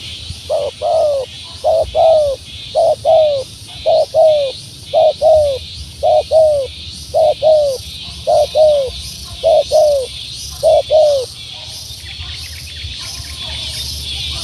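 Dove cooing: a two-note falling call repeated about ten times, roughly once a second, then stopping near the end, over a steady high hiss.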